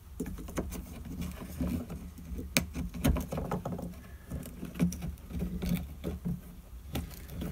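Small clicks, taps and rubbing as a plastic insert is handled and pressed into place around the bit shaft on a glass grinder's plastic grid work surface, with sharper clicks about two and a half and three seconds in and again near the end. A low steady hum runs underneath.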